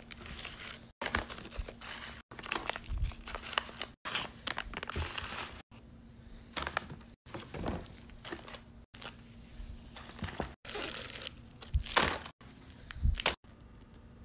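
Plastic candy wrappers crinkling as wrapped sweets are handled and packed into a cardboard box, with a few soft thumps. The sound comes in short snatches that cut off abruptly every second or so.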